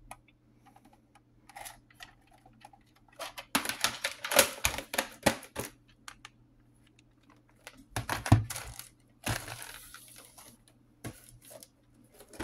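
Plastic VHS cassette and case being handled: a burst of clattering clicks and rattles a few seconds in, a heavier knock about eight seconds in, then a short scrape and a few scattered clicks.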